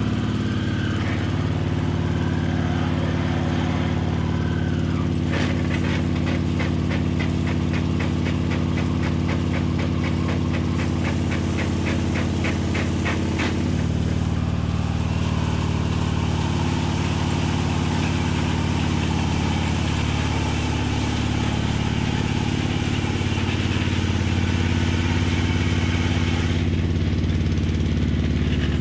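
Husqvarna ride-on mower engine running steadily while driving a rotating brush attachment. For about eight seconds in the middle, a regular series of short ticks, roughly three a second, runs over it.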